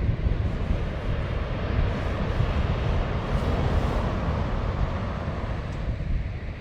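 Wind buffeting the microphone over the rushing wash of the sea, the water noise swelling and easing a couple of seconds in.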